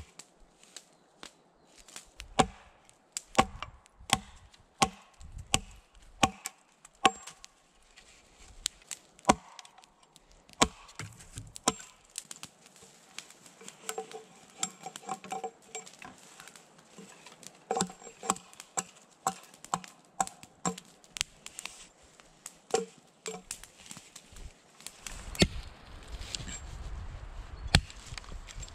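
Hatchet chopping into a log: a long run of sharp wooden knocks, about one to two a second. A low rumble joins in for the last few seconds.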